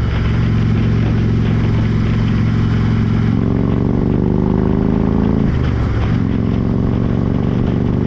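Harley-Davidson Road King's V-twin engine running under way at road speed, with wind and road noise. The engine note climbs gradually, drops away briefly about five and a half seconds in, then picks up again at a lower, steady pitch.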